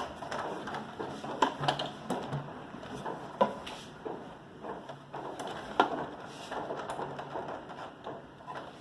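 Irregular light clicks and knocks from a plastic toy RC car being handled, with no motor running.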